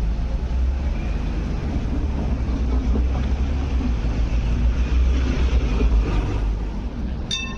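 Light rail vehicle rolling slowly away over curved depot track, a steady low rumble. Near the end a single sharp metallic ding rings out and dies away.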